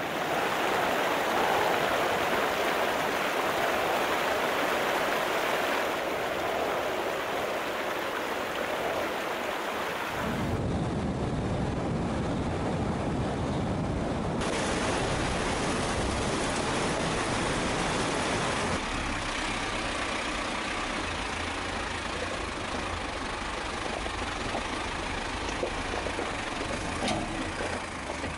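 A steady rushing noise for about the first ten seconds, then a vehicle engine running with road noise.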